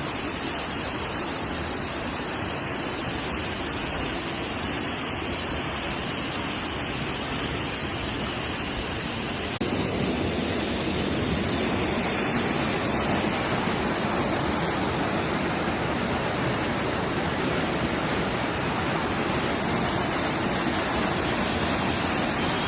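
Waterfall rushing steadily, a dense even wash of falling water that steps up in level about ten seconds in.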